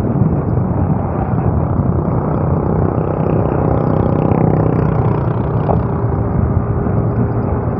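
Motorcycle riding at speed on a highway: steady engine drone under loud, constant wind and road rush.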